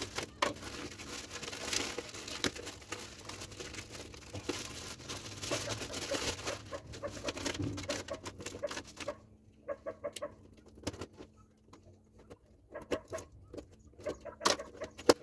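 A cardboard parts box and its packaging being opened and handled: rustling, tearing and crinkling with small clicks and taps, busiest in the first half and sparser after about nine seconds.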